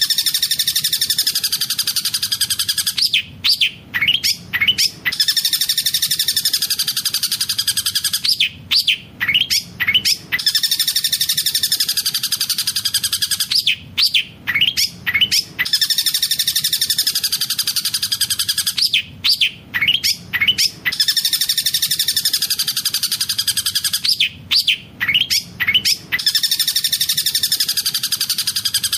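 Long-tailed shrike (cendet) song with mimicked tengkek buto calls: a fast rolling trill of about three seconds, then a burst of sharp separate shots. The phrase repeats about every five seconds as a looped training recording.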